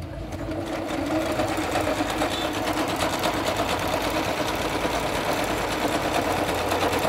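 Jaguar CD-2205MP computerized sewing machine running at a steady speed, its needle stitching a decorative zigzag pattern with a rapid, even run of strokes.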